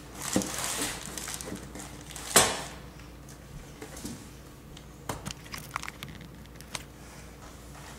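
Packaging being handled as a mandoline is unpacked: crinkling and rustling, with one sharp knock about two and a half seconds in and a few lighter clicks later.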